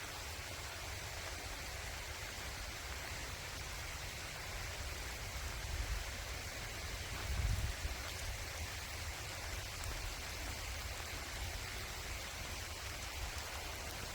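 Steady light rain falling, an even soft hiss, with two brief low rumbles about halfway through.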